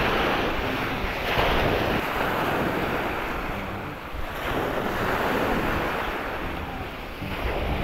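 Waves washing on the shore of a beach, swelling and easing twice, with wind buffeting the microphone.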